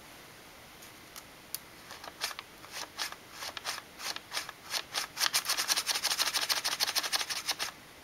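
Folded paper of an origami flapping bird crackling as its tail is pulled and its wings flap: sharp papery ticks that come faster and louder, building to a quick run of several a second that stops suddenly near the end.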